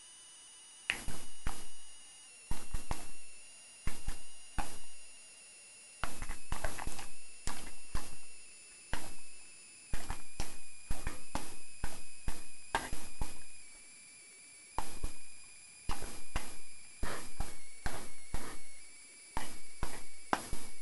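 English springer spaniel smacking and clicking his mouth and tongue, working at peanut butter stuck to the roof of his mouth. The wet clicks come in quick bouts of several a second, with short pauses between bouts.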